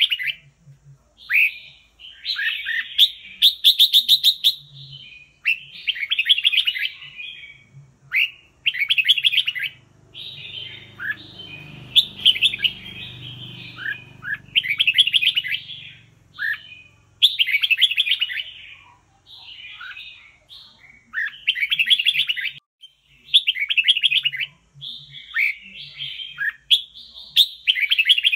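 Red-whiskered bulbul singing: short, quick trilled phrases repeated about every one to two seconds.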